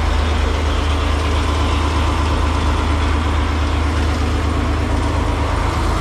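Diesel truck engine idling steadily, a loud, even low throb with a regular pulse.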